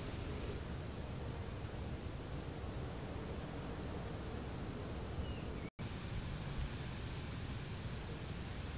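Outdoor garden ambience: a steady low rumble and hiss with a thin, high insect drone running through it, broken by a split-second dropout about six seconds in.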